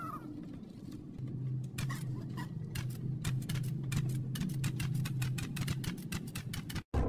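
A quick run of light clicks, several a second and getting denser, over a low steady hum. Near the end it cuts off suddenly.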